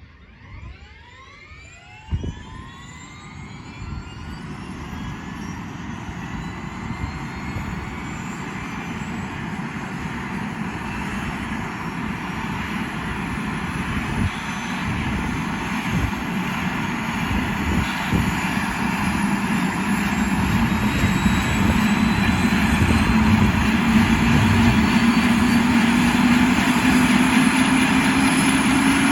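Helicopter turbine engine starting up: a whine that climbs in pitch and grows steadily louder as the turbine spools up, with a low hum rising under it near the end. A single knock comes about two seconds in.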